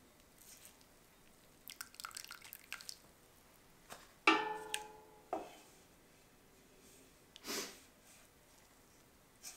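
Tea bags being lifted with a wooden spoon out of a stainless steel pot of brewed tea: tea drips and splashes, with small clicks and crackles. About four seconds in comes a sharp knock with a metallic ring that fades over half a second, the loudest sound, then a short splash near the end.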